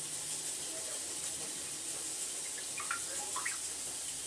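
Steady rushing of running water, with a few faint light clicks about three seconds in.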